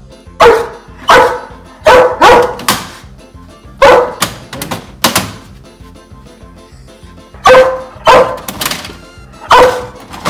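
A dog barking loudly and repeatedly, about a dozen sharp barks in clusters of two or three, over background music.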